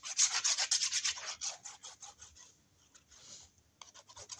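Cardstock and paper rubbing and scraping under the hands. A quick run of strokes comes in the first two seconds, then fainter ones, with a few more near the end.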